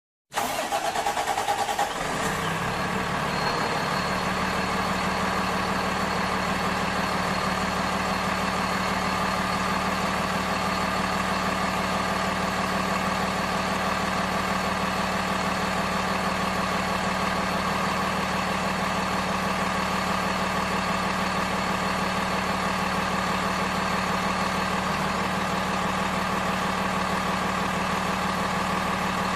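A vehicle engine idling steadily, a truck-like engine hum that cuts in abruptly after a moment of silence.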